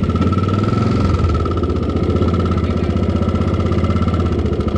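Suzuki motorcycle engine running at low revs with a steady, even putter as the bike rolls slowly along.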